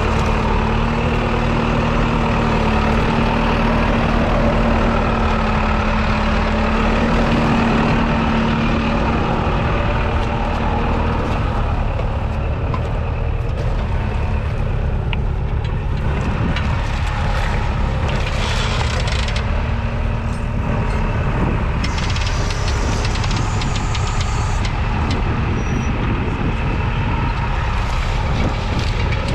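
The 4.4-litre four-cylinder diesel engine of a Valtra A95 tractor, running steadily under load. Its strong engine hum fades about a third of the way through, leaving a rougher running noise with brief bursts of hiss later.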